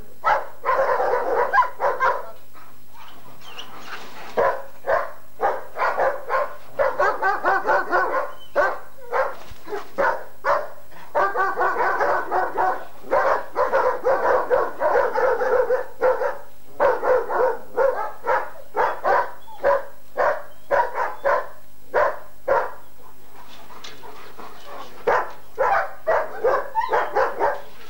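A dog barking over and over in quick runs of several barks a second, with a few pauses of a couple of seconds.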